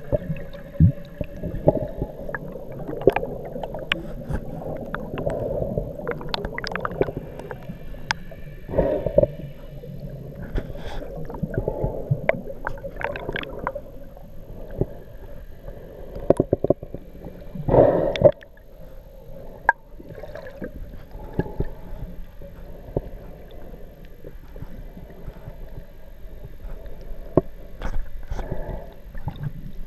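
Underwater sound of scuba divers' exhaust bubbles rising past the camera: a muffled gurgling rush full of small pops and crackles, busiest in the first half, with one louder burst about eighteen seconds in.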